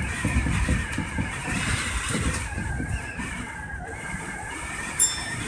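Electric commuter train running, heard from inside the driver's cab: a steady rumble of wheels on rail with uneven thumps that fade, over a wavering high whine. About five seconds in there is one short, sharp high-pitched tone.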